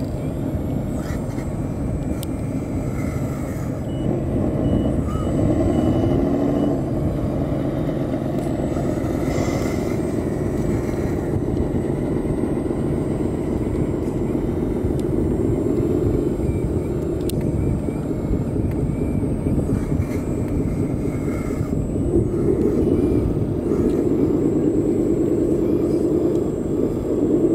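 1/14-scale RC hydraulic excavator working: a steady mechanical drone with a pump whine that rises and falls in pitch several times as the boom, arm and bucket move.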